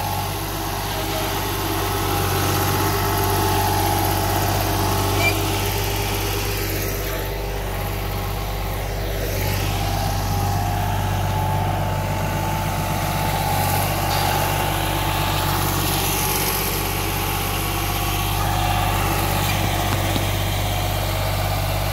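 Cable plow's engine running steadily as its blade is drawn through the soil, burying the cable.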